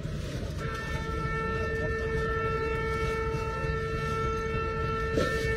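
A train horn sounds one long steady blast, starting about half a second in and held for about five seconds. Under it runs the steady rumble of the moving train.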